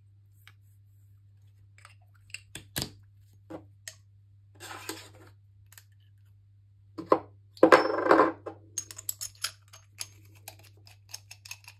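Brass plumbing fittings handled and screwed together by hand: scattered clicks and clinks of brass parts, two short scraping bursts, then a run of quick light ticks near the end as a compression nut is turned onto the zone valve's thread.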